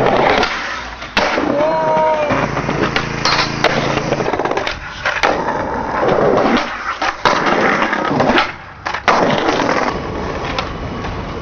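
Skateboard wheels rolling loudly over concrete, broken several times by sharp clacks of the board snapping and landing during tricks.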